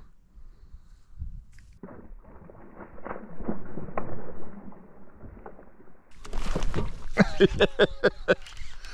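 Water splashing and sloshing at the surface as a bass strikes at a topwater frog lure and is missed, followed about six seconds in by a man's short wordless vocal outburst.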